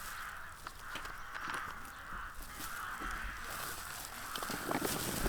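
Harsh bird calls repeating about once a second, like crows cawing.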